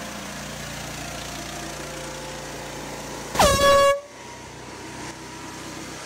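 Steady hiss of a pressure washer spraying. About three and a half seconds in, a loud air horn blast cuts in for just over half a second, its pitch dropping sharply at the start and then holding.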